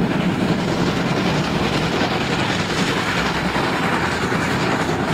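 Steam locomotive (Norfolk and Western No. 382) running past, a steady rush of rumbling noise from the engine and its train on the rails.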